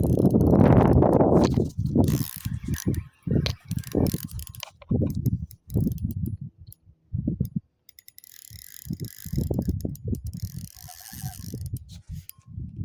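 Fishing reel cranked in spurts with a clicking mechanism while a hooked redfish is brought back toward the boat, with bumps and rubbing on the phone's microphone.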